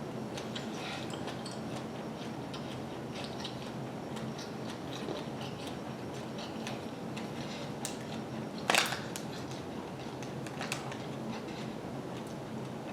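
Person chewing and biting into a fried egg roll, with faint scattered crunches and clicks and one louder sharp sound about nine seconds in.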